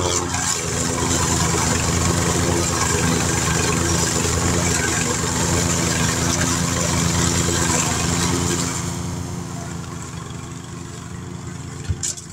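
PowerSmart gas push mower's horizontal-shaft engine running steadily under load, its blade cutting through tall grass and weeds. About nine seconds in it is heard from farther away and drops in level, with a sharp click near the end.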